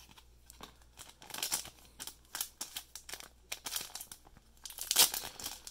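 Thin clear plastic card sleeve crinkling as fingers peel it open and work a trading card out, in a run of short crackles that grows louder about five seconds in.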